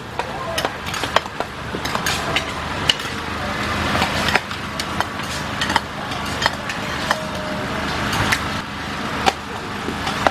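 Metal ladle and spatula clanking and scraping against a large wok as fried rice and fried vermicelli are tossed: irregular sharp clanks over a steady hiss.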